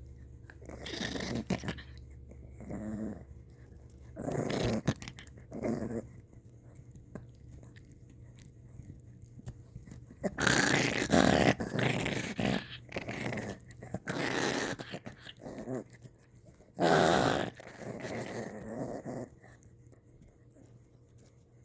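Maltese dog growling in irregular bursts while gnawing on a tire, the loudest stretches about halfway through and again a few seconds later.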